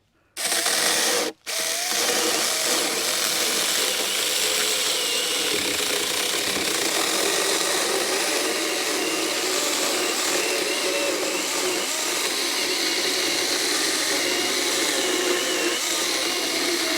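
Saker mini electric chainsaw running and cutting through pressure-treated 4x6 lumber. It stops briefly about a second in, then runs at a steady pitch through the cut.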